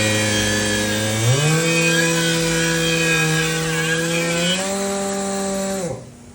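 Hercules cordless angle grinder's motor running with a steady whine that steps up in pitch about a second in and again near the end, then winds down and cuts out. The tool keeps overloading and shutting off, which the owner takes for the grinder dying.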